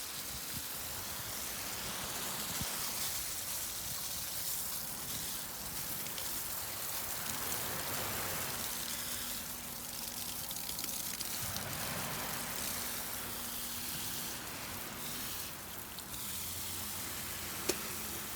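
Sea surf washing onto the shore: a steady rushing that swells and ebbs slowly. A single short click near the end.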